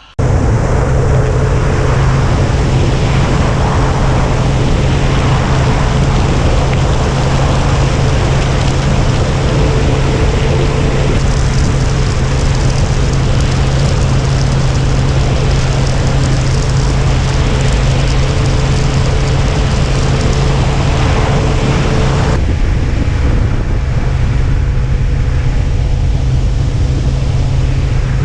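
Motorcycle engine running steadily at riding speed under heavy wind rush on the microphone. The sound changes abruptly about 22 seconds in, the low hum and the wind both shifting.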